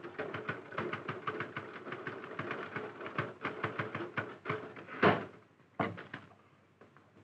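A rapid, uneven clatter of sharp clicks, several a second, for about five seconds. It ends with one loud clack and is followed by a few scattered knocks.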